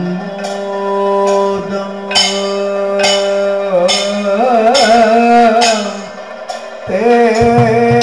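Kathakali padam singing: a male voice holds one long note, then about halfway through sings a wavering, ornamented phrase over a steady drone. Sharp metallic percussion strikes sound roughly every second.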